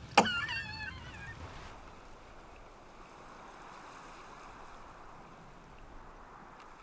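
A short, high, wavering voice-like squeal in the first second or so, followed by a steady soft rushing hiss.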